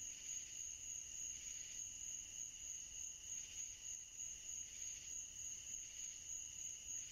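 Faint, steady chirping of crickets, a high-pitched trill that continues without break.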